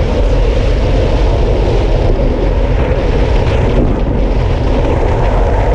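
Loud, steady wind rush buffeting an action camera's microphone as a road bike descends at speed, with rumble from the road.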